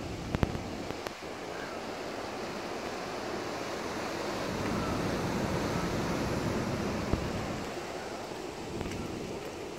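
Wind blowing over the microphone: a steady rumbling rush that swells in the middle and eases off again, with a couple of sharp clicks near the start and another about seven seconds in.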